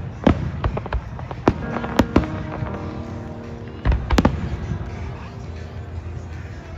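Fireworks going off in irregular sharp bangs, several in the first half and a close cluster about four seconds in, with music playing alongside.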